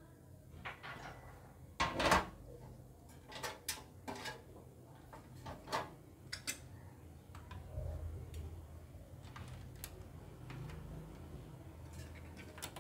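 Clicks and knocks of CPU cooler mounting hardware (bracket, backplate and screws) being handled and fitted to a motherboard: a cluster of sharp knocks about two seconds in, then scattered lighter clicks.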